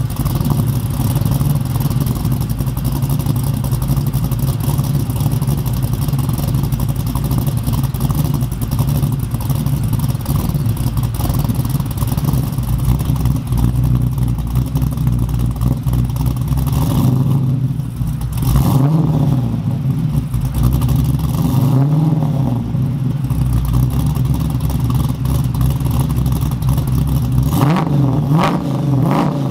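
LS3 V8 running through a custom dual 3-inch stainless steel exhaust with a homemade X-pipe and resonators, idling steadily and deeply. In the second half the engine speed briefly rises and falls a few times, twice in quick succession near the end.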